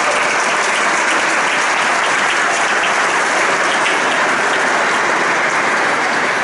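Audience applauding steadily, dense clapping from a large crowd.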